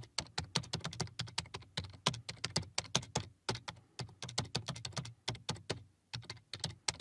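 Computer keyboard being typed on at a steady pace, several key clicks a second, with a brief pause near the end.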